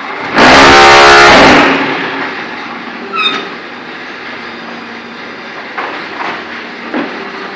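ZCJK4-15 concrete brick machine running. A loud, harsh rattling burst lasts about a second, and a ringing metal clank comes about three seconds in. Under these is a steady motor hum and a few lighter knocks near the end.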